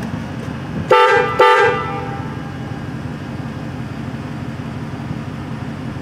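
Two short blasts from a Hornblasters air horn on a pickup's on-board air system, about a second in. Each blast sounds several notes at once, over a steady low hum.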